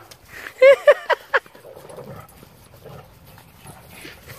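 Great Dane puppy giving about four quick, sharp play barks in a row just under a second in.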